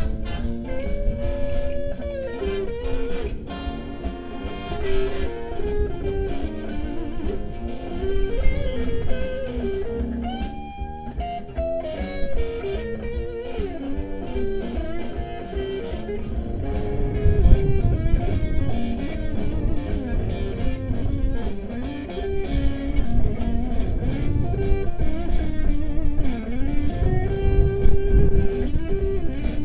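Live blues band playing, with a guitar carrying quick lead lines and string bends over the band's backing and a steady beat.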